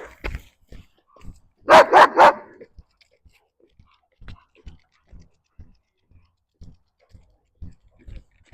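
A dog barking three times in quick succession, about two seconds in, followed by faint, evenly spaced low thumps.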